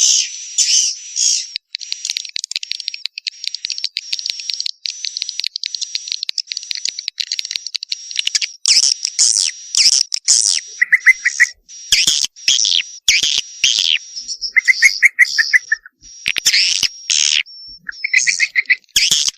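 Swiftlets twittering in a dense run of rapid, high chirps, with a few short, lower buzzy trills in the second half. This is the swiftlet call for young birds ("panggil anakan"), the kind of recording played to draw swiftlets to a nesting house.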